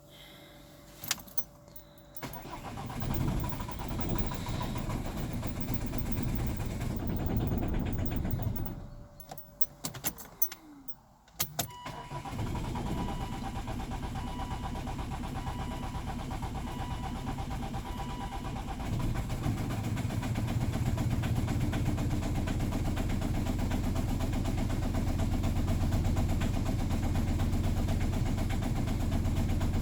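Volvo V50 2.0D diesel engine being cranked for about six seconds without catching, the hard start it is filmed for. After a few clicks, a second attempt brings it to a steady run, which grows louder and deeper later on.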